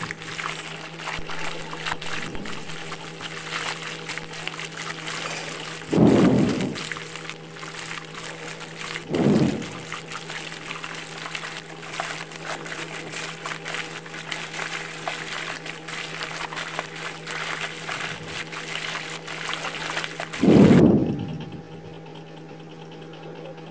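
Chicken pieces deep-frying in hot oil: a steady crackling sizzle, broken by a few dull thumps about 6, 9 and 21 seconds in. After the last thump the sizzle turns duller.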